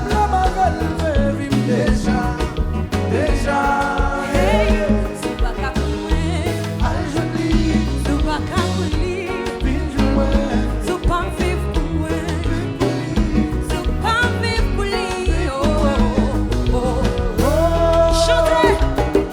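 Live band playing Haitian dance music, with a singer's voice over a steady bass line.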